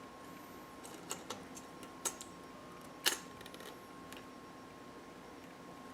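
Plastic snap-fit model airplane parts being handled and fitted together: a few light plastic clicks and taps, the loudest about three seconds in.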